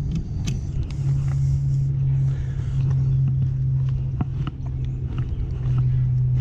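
A steady low hum of running machinery throughout, with scattered light clicks and taps of tools being handled.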